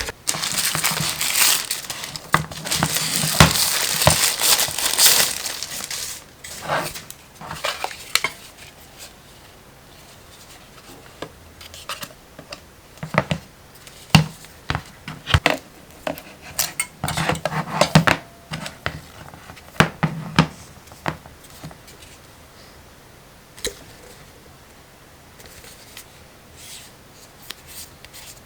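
Handling noise: crinkling and rustling for about the first six seconds, then scattered sharp clicks and knocks.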